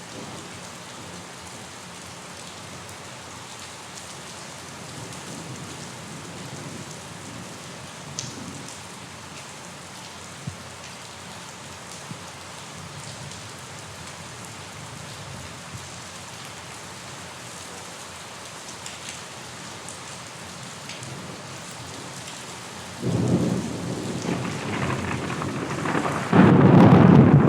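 Steady rain falling, with a few sharper drops. About 23 seconds in, thunder breaks in with a deep rumble that grows into a loud roll near the end.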